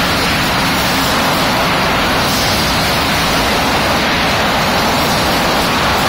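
Steady, loud machinery noise of a sawmill: an even, unbroken din with no distinct knocks or rhythm.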